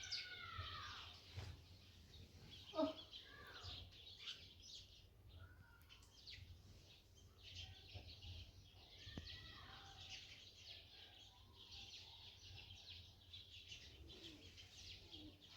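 Faint birds chirping throughout, with one brief louder call about three seconds in.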